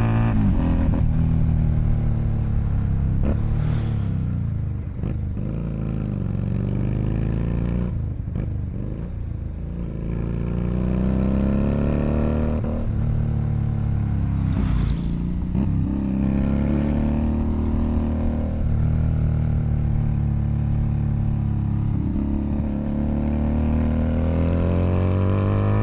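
Keeway SCR 250V motorcycle running through a custom shortened chopper-style exhaust while being ridden: the exhaust note climbs under throttle and drops sharply on shifts or throttle lifts, about a third and three fifths of the way in, then climbs again near the end.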